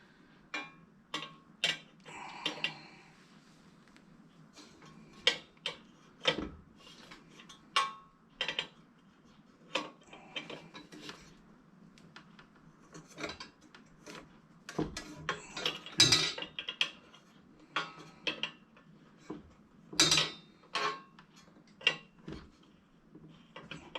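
Small wrenches clinking, scraping and knocking on the metal parts of a Coleman 220F lantern as it is taken apart: scattered irregular metal clicks and clanks, loudest around two-thirds of the way through.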